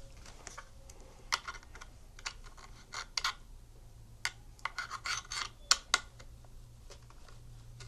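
Light, irregular clicks and rubbing as an HDMI cable is handled and its plug pushed into the docking station's port.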